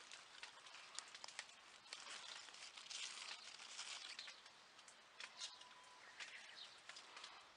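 Faint, continuous patter of rain on the plastic film of a greenhouse, full of fine irregular crackles.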